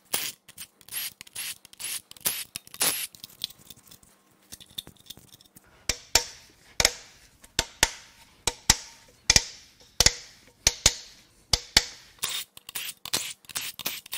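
Ratchet wrench clicking as bolts are worked loose, with clicks in quick runs at first and then sharper separate clicks about twice a second from around six seconds in.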